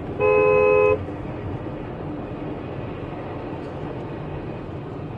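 A car horn gives one loud honk of under a second near the start, followed by the steady noise of a car driving along the road.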